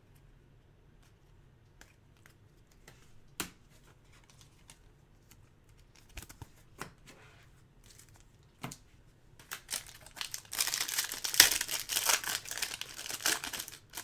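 A few faint clicks and taps of cards being handled, then, about nine and a half seconds in, loud crinkling and tearing as the foil wrapper of a Topps Chrome card pack is ripped open.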